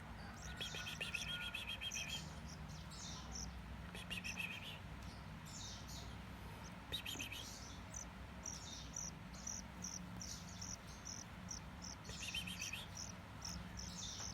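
Hybrid seedeater finch (grey singing finch × black-throated canary) singing: a run of short high chirping notes broken by several fast trills lasting a second or so each. A steady low hum sits underneath.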